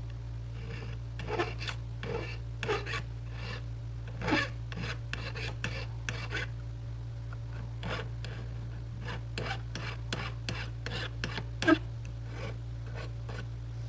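A paper file (sanding stick) scraped back and forth in short, irregular strokes against the edge of a ring, flat-sanding the sides and taking off burrs after sizing. A steady low hum runs underneath.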